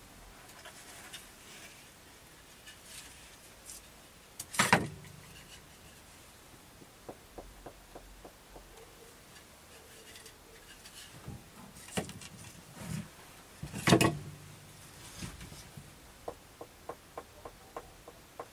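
Pieces of wood handled and knocked: two sharp wooden knocks about four and a half and fourteen seconds in, with runs of light taps between them. Near the end there is a run of quick, evenly spaced taps on a thin board held up to the ear, the way an instrument maker taps tonewood to hear it ring.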